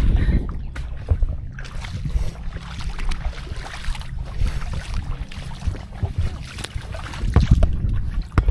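Wind buffeting the microphone: an uneven low rumble that swells and drops in gusts, strongest about seven seconds in.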